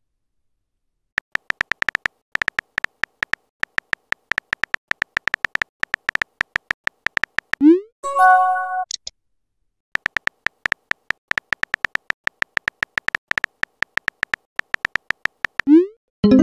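Messaging-app sound effects: a long run of rapid, evenly pitched keyboard-typing clicks, then a short rising swoosh and a chime as a message is sent. A second run of typing clicks follows and ends in another swoosh near the end.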